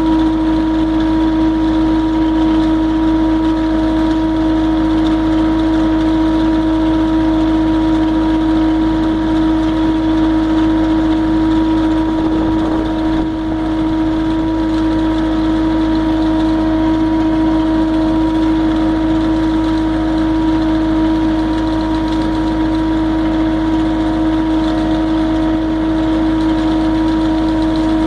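MultiOne compact loader's engine and hydraulics running steadily at working speed with a constant pitched hum, powering a finger bar hedge cutter. The loudness dips briefly about halfway through.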